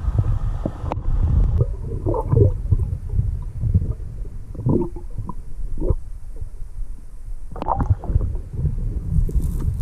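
Scuba diver's regulator breathing heard through an underwater camera housing: a steady low rumble with bursts of gurgling exhaled bubbles, then the hiss of an inhale near the end.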